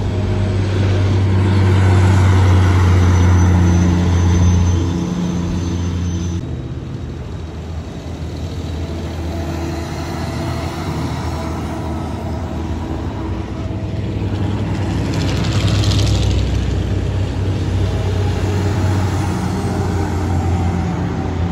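Diesel semi trucks (a dump truck, a car carrier and a flatbed rig) passing one after another on a highway, with engine drone and tyre noise. It is loudest in the first few seconds and again about two thirds of the way through, with an abrupt drop about six seconds in.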